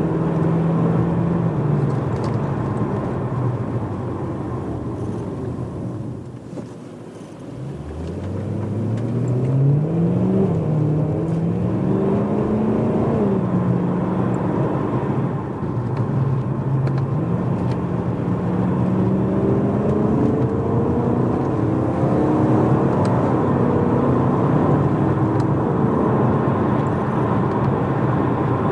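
BMW E92 M3's 4.0-litre V8 heard from inside the cabin through a primary-decat X-pipe and stock rear silencer while driving. The engine note holds steady, falls away and goes quieter about a quarter of the way in, then climbs in pitch, dips briefly and climbs again before settling to a steady cruise.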